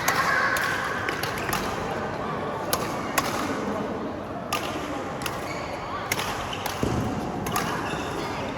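Badminton rackets striking a shuttlecock in a rally: sharp smacks roughly once a second, over background chatter, with a dull thump about two-thirds of the way in.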